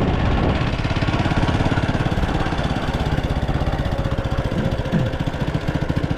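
Vehicle engine running steadily with a rapid, even pulse, heard from on board while travelling.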